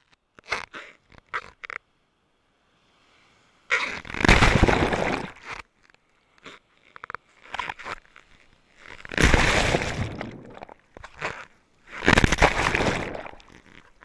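Broken-wave whitewater surging and splashing around an action camera held at water level: a few small splashes and crackles first, then three loud rushes of foaming water, each lasting a second or two.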